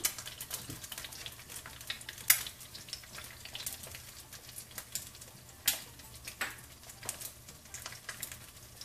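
Eggs frying in a little oil in a nonstick skillet, sizzling steadily with scattered small pops; sharper pops come a little over two seconds in and just before six seconds.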